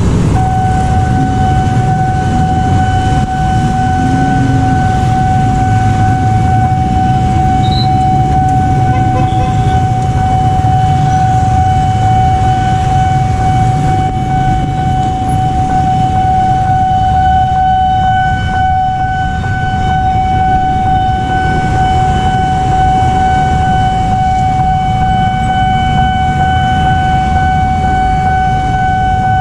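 Railway level-crossing warning alarm sounding one steady high tone, starting about half a second in. Underneath runs the engine noise of minibuses and motorcycles at the crossing.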